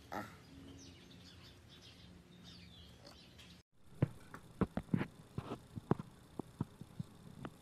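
Birds chirping faintly for the first few seconds. Then, after a brief dropout, a string of sharp, irregular clicks and smacks, several a second, from a monkey sipping from a small glass mug.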